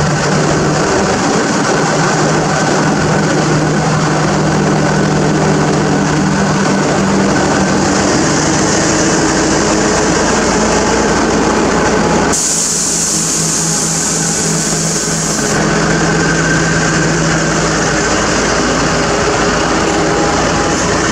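Thai Alsthom diesel-electric locomotive's engine running steadily as it rolls slowly past, followed by its coaches rumbling along the rails. A loud hiss lasts about three seconds near the middle.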